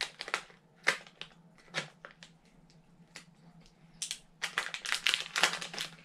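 Sealed plastic bag around a small collectible being torn open and crinkled by hand. Scattered crackles come with sharper snaps about one and two seconds in, then a dense run of crinkling near the end as the item is worked free.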